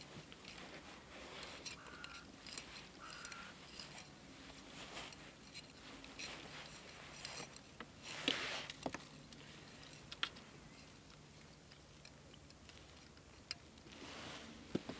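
Faint clicks and rustles of hands handling a plastic disc float and its fishing line, with a louder rustle about eight seconds in.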